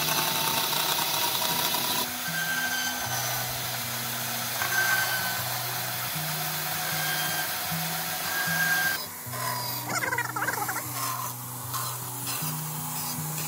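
Homemade bandsaw, built from 16-inch bicycle wheels and driven by a washing machine motor, running and cutting through a thin 4 mm board, a steady rasping hiss. Background music with a stepping bass line plays over it, and the saw noise drops back about nine seconds in.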